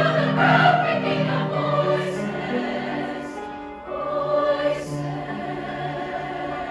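Choir singing sustained chords, fading somewhat toward the end.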